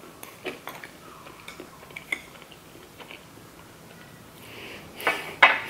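Light clicks of wooden chopsticks against a small ceramic sauce dish as sushi is dipped in soy sauce. Near the end come loud, crackly chewing and mouth sounds close to the microphone.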